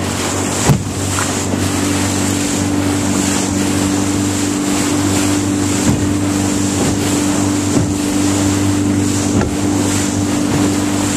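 Flats skiff running on plane into choppy water: its outboard motor holds a steady pitch under a loud rush of wind on the microphone and water along the hull. A few sharp knocks come as the hull meets the chop.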